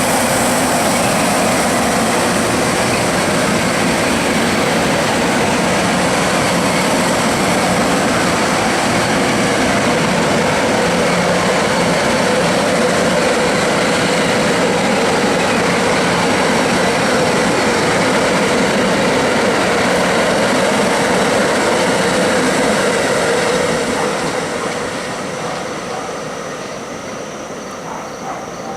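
Metro-North M-1 electric railcar train braking as it comes to a stop: loud, steady running and brake noise with a few steady high tones in it, dying down from about 24 seconds in.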